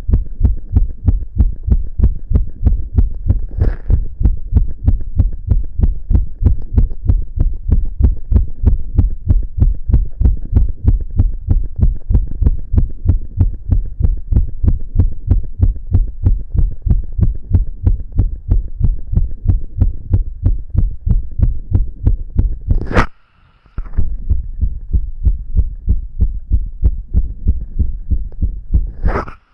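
A young man's fast heartbeat: a steady, even run of deep thumps. About 23 s in, a sharp click cuts it off for under a second before the beating resumes, and another sharp click comes near the end.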